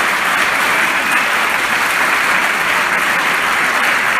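An audience applauding, steady and loud.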